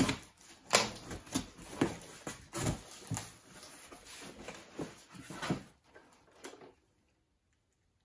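Cardboard box being opened by hand: packing tape torn and cardboard flaps pulled back, rustling and scraping with several sharp knocks. It stops a little before the end.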